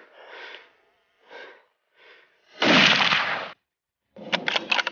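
Breathing and breathy whispering close to the microphone: a few short soft puffs, then one loud long breath about halfway through, and a quick run of crackles near the end.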